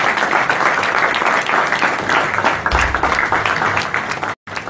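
Audience applauding, a dense stream of many hands clapping. The sound drops out for a moment near the end.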